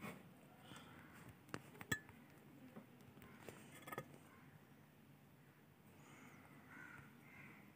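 Near silence: faint room tone with a few soft clicks, the sharpest about two seconds in.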